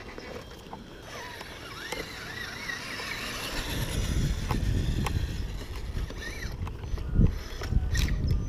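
Radio-controlled rock crawler running, its brushless motor and geared drivetrain whirring as it drives over grass. A heavy low rumble on the microphone builds from about halfway, with a loud thump about seven seconds in.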